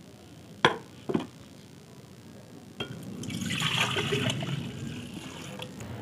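Filtered blue nitric-acid solution being poured into a glass beaker: a splashing trickle that starts about three seconds in, swells, then tapers off. Two short knocks come before it, under a second apart.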